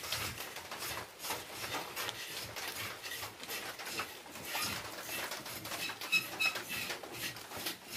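A small knife scraping along a freshly cut cinnamon stick as the bark is worked loose for peeling: quick, irregular scratchy strokes.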